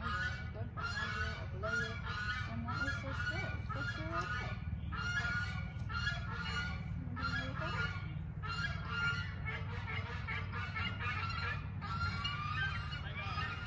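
Birds honking over and over, one to two calls a second without a break, over a steady low rumble.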